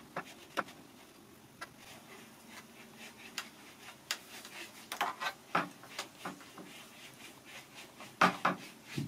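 Scattered small clicks and taps as a screwdriver is turned to twist a clothesline cord tight around a wooden headboard, building up tension in the cord to clamp the glued joints. A louder pair of knocks comes near the end.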